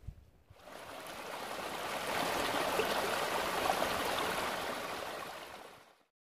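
Small rocky stream splashing and trickling over stones, a steady rush of running water. It fades in about half a second in and fades out near the end.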